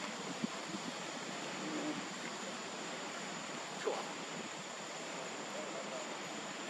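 Steady outdoor hiss like wind on the microphone, with a faint steady high-pitched tone throughout. A brief faint rising squeak comes about four seconds in.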